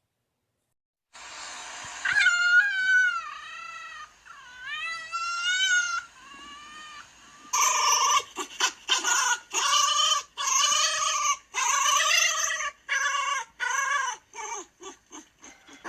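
Fox calling: after about a second of silence, a few high whining calls that bend up and down in pitch. About halfway through comes a run of louder, rapid yelping calls that grow shorter and quicker near the end.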